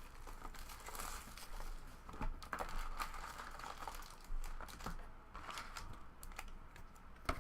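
Plastic wrapping crinkling and tearing as a sealed trading-card box and its packs are opened by hand, in scattered crackles and clicks.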